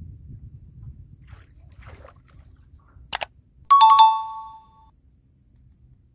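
A sharp click, then a loud two-note electronic chime, a higher note falling to a lower one and ringing out for about a second, over a low rumble of water and boat noise.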